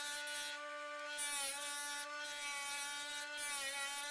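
Homemade electric disc sander running with a steady motor whine while a small plywood piece is sanded against the disc. The pitch sags briefly twice, about a second and a half in and again near the end, as the wood loads the disc.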